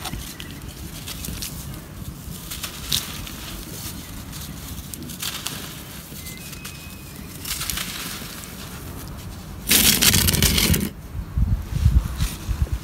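Hands crushing and crumbling blocks of dry red dirt: scattered soft, gritty crunches. About ten seconds in comes one loud, dense crunch lasting about a second as a block is broken apart, followed by smaller crackly crumbles.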